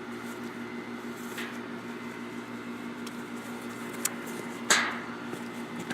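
A steady low hum runs throughout, with a few faint clicks. About three-quarters of the way through comes one louder, short, sharp knock or rustle of handling.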